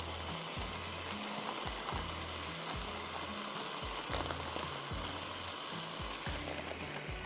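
Potatoes, peas and tomato masala sizzling steadily in a frying pan as they cook, under soft background music with a repeating bass line.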